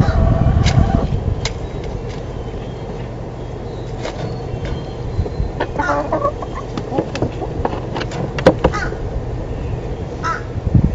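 A rooster's crow ending in the first second, then chickens giving short, scattered calls over a steady low rumble, with occasional clicks.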